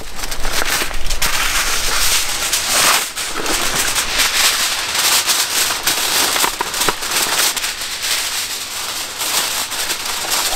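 Alcan aluminum foil being pulled from its box and crinkled as it is spread and pressed over a foil pan: a continuous, loud crackling rustle.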